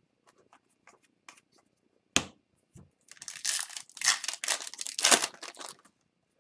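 A 2021-22 Upper Deck Series 2 hockey card pack's foil wrapper being torn open by hand, a crinkling tear lasting about three seconds. Before it come a few light ticks of cards being handled and one sharp click about two seconds in.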